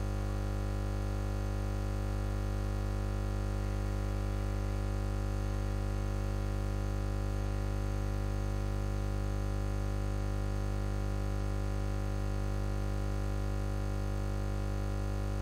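Steady electrical hum: a stack of unchanging tones at an even level throughout, with no melody or rhythm.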